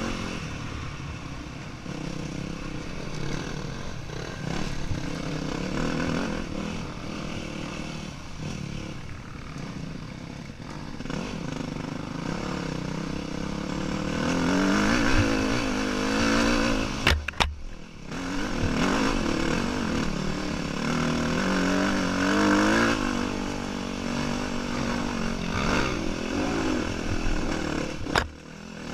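2008 Yamaha WR250F's single-cylinder four-stroke engine being ridden off-road, its revs rising and falling with the throttle. There are two short sharp knocks, about two-thirds of the way through and near the end.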